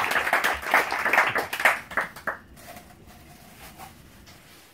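A small group clapping, dying away a little over two seconds in.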